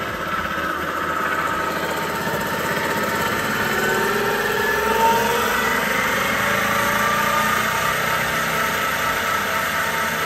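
Rebuilt Volvo Penta HS1A 2-to-1 reduction marine transmission running on a test stand, driven through its input pulley. It is a steady mechanical run, quiet by the mechanic's account, with a whine that rises in pitch about four to six seconds in. The test shows good oil pressure.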